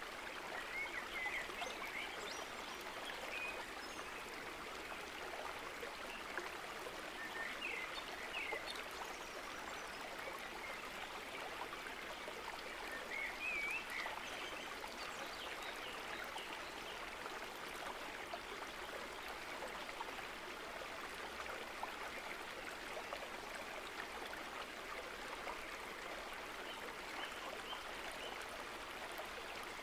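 Steady rushing water, like a running stream, with a few faint high chirps about 1, 8 and 13 seconds in.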